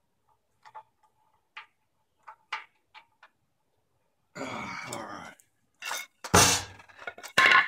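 Scattered light clicks and taps as a screw-on foot is fitted under the air compressor's steel tank. About four seconds in comes a short grunt, then two loud thuds as the tank is set down onto its new feet.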